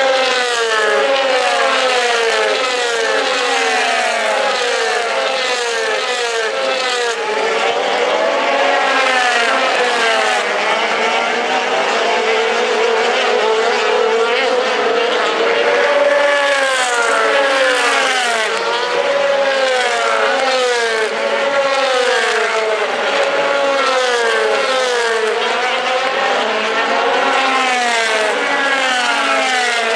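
A pack of DTM touring cars at racing speed, their 4-litre V8 engines revving up through the gears and dropping on downshifts, many engines sounding over one another without a break.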